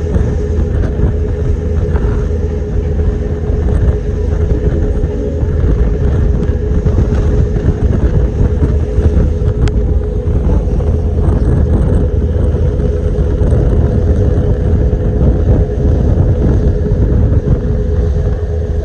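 A boat's engine running steadily under way: a constant low rumble with a steady hum above it.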